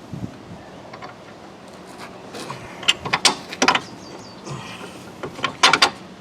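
Metal clicks and clinks of strut bolts being handled and fitted through the strut and steering knuckle, in two clusters: about three seconds in and again near the end.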